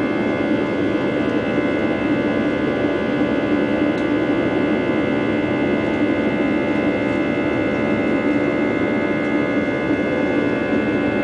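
Steady cabin drone of an Airbus A320 climbing after takeoff, heard from inside the passenger cabin: jet engine noise and rushing air, with several steady whining tones and no change in level.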